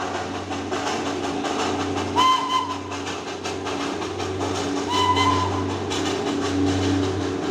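Darjeeling Himalayan Railway steam locomotive working along the line, its steam and exhaust hissing steadily, with two short whistle toots about two seconds and five seconds in.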